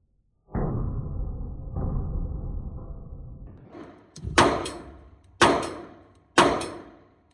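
Three pistol shots from a PSA Dagger Micro 9mm, about a second apart starting a little past the halfway point, each with a ringing tail. Before them, a sustained low sound with a few steady tones starts suddenly about half a second in and slowly fades.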